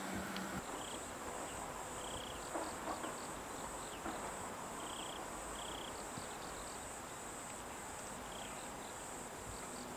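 Crickets chirping: a high, steady trill that pulses about one and a half times a second, with short chirps now and then.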